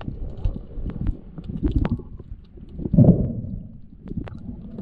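Water noise picked up by a camera under the surface: a muffled low rumble with scattered small clicks and knocks, and a louder muffled surge about three seconds in.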